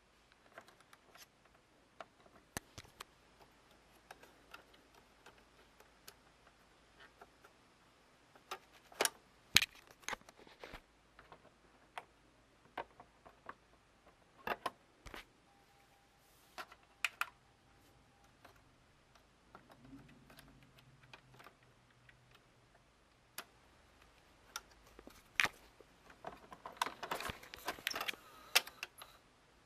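Scattered plastic clicks and clatters of hands working the opened mechanism of a jammed Magnavox VCR, with a dense run of clicks near the end. A brief low hum comes about two-thirds of the way through.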